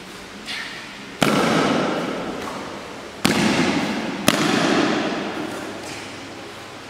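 Three sharp hits from a pencak silat performer's solo routine, each followed by a long echo dying away in a large hard-walled hall. The first comes about a second in; the last two are about a second apart.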